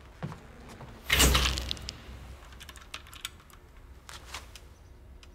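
An old reflector-flash camera firing: a sudden bright burst about a second in that fades within about a second, followed by a few light clicks.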